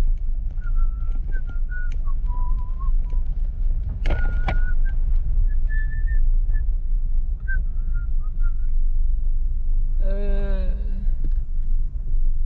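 A person whistling a wandering tune in short separate notes, over the steady low rumble of a moving car heard from inside the cabin. A single knock about four seconds in, and a short vocal sound near the end.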